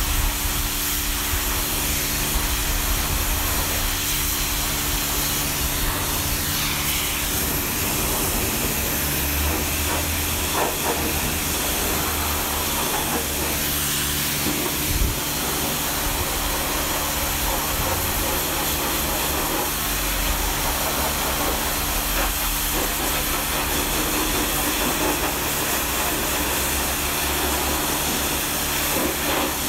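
Pressure washer spraying: a steady hiss of water jet over the machine's steady motor hum.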